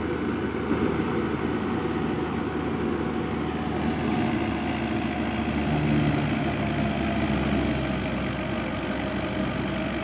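Tractor-driven wheat thresher running steadily: the tractor's engine holds a constant drone under load while powering the threshing machine.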